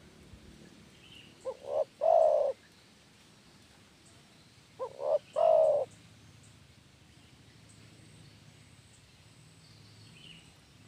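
Spotted dove cooing: two calls about three seconds apart, each of two short quick notes followed by a longer coo.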